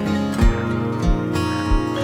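Background music: strummed acoustic guitar over a steady low beat, a little under two beats a second.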